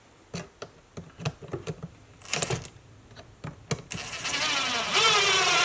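A few clicks and knocks of handling, then a cordless drill runs for about a second and a half near the end, driving a screw into the chainsaw's plastic housing, its pitch falling as it works.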